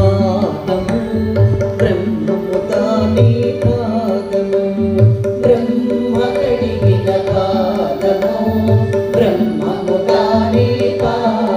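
Indian classical-style background music: tabla over a steady drone, with a wavering melody line above and deep bass strokes about every two seconds.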